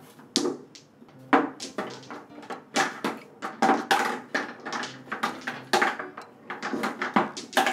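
Irregular clacks and knocks, two or three a second, of balls striking each other and the wooden frame of a toy tabletop pool table.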